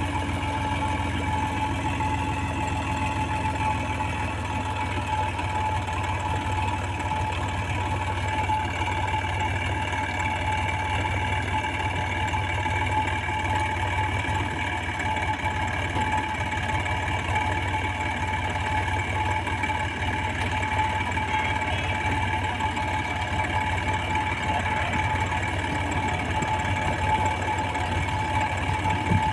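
HMT tractor's diesel engine idling steadily.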